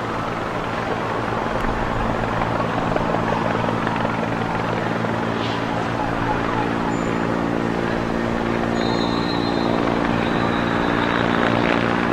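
A steady engine drone over a wash of outdoor noise, its hum growing stronger about halfway through.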